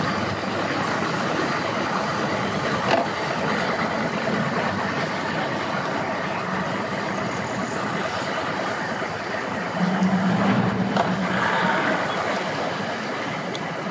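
Outboard motor idling steadily, a low engine hum under a wash of noise, swelling louder for a second or two about ten seconds in.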